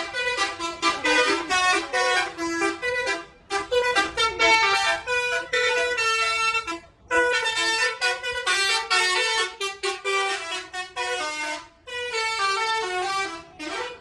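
Bus telolet horn, a multi-tone air horn, playing a fast tune of short pitched notes in phrases, with brief breaks about three and a half, seven and twelve seconds in.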